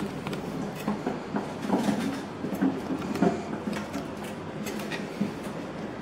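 Hotel luggage cart rolling along, with a steady rumble and scattered rattles and knocks.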